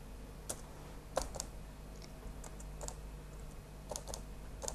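Keys tapped in short, irregular keystrokes, about nine in all, as the propeller measurements are entered to calculate the pitch, over a faint steady hum.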